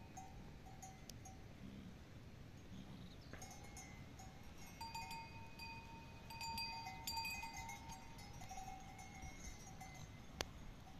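Bells on a yak herd ringing and clanking faintly, several bells at slightly different pitches, busier from a few seconds in. One sharp click near the end.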